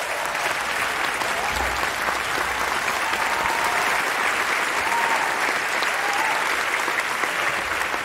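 A large audience applauding with steady, dense clapping.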